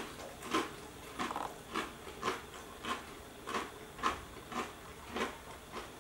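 A person chewing a mouthful of thin, crunchy rice cracker with avocado: crisp crunches about twice a second.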